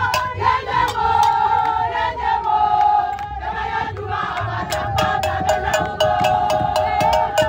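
A crowd of women singing together in a loud mourning chant, with held notes. Rhythmic handclaps grow to about four or five a second from about halfway in.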